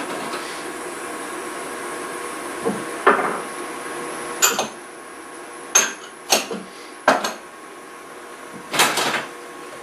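Small ceramic spice bowls clattering against hard kitchen surfaces: about half a dozen sharp knocks spread over several seconds, the loudest near the end, over a steady hiss.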